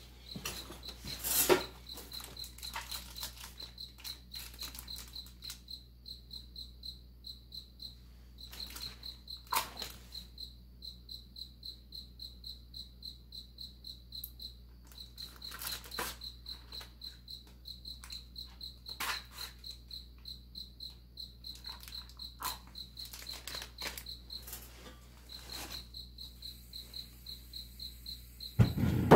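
A cricket chirping steadily, about two to three chirps a second, with scattered sharp clicks and knocks. Near the end a sudden loud low rush begins as a flame is lit inside the small insulated foundry.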